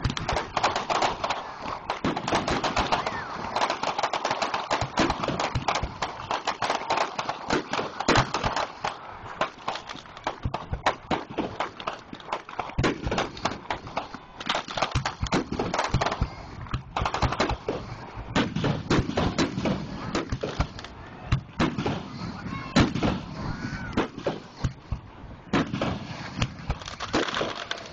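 Fireworks display: shells launching and bursting in a rapid, nearly continuous run of sharp bangs and crackling.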